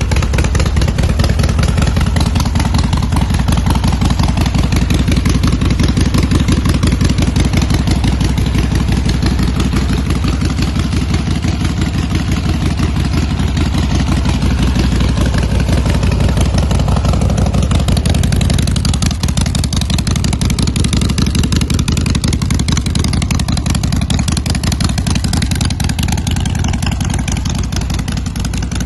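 Harley-Davidson Dyna motorcycle's air-cooled V-twin engine running steadily, its firing pulses dense and strong in the low end.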